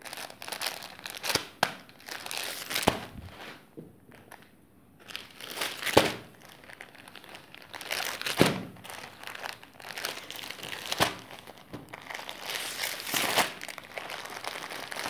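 Clear plastic saree packaging crinkling as wrapped saree packs are handled and moved, in irregular crackles with several louder ones.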